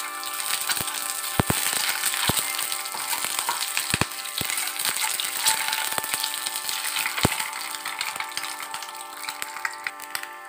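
Peeled boiled eggs and green chilli frying in hot oil in a nonstick pan, the oil sizzling and crackling steadily, with a handful of sharp clicks scattered through it.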